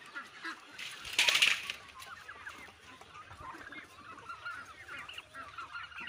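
Flock of Khaki Campbell and white Pekin ducks calling: one loud, harsh quack about a second in, then many short, soft calls from the flock.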